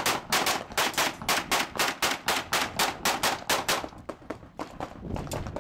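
Rapid string of pistol shots fired through a shooting port at a practical shooting stage, about five shots a second for nearly four seconds, then a few fainter, spaced shots near the end.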